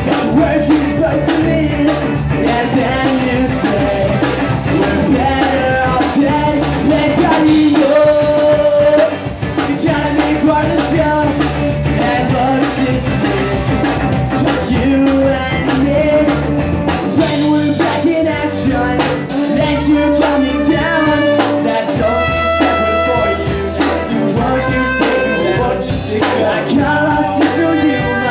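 Live ska-punk band playing: electric guitars, bass and drum kit with a sung lead vocal, briefly dropping back about nine seconds in.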